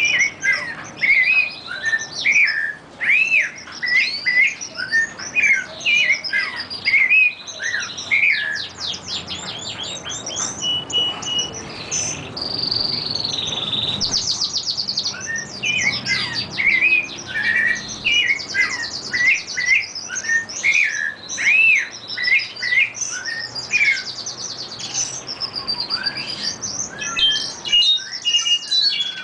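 A chorus of songbirds, a domestic canary, a brown-backed solitaire and a curve-billed thrasher, singing together: strings of short rising-and-falling whistled notes mixed with fast high trills, with one long rapid trill about halfway through.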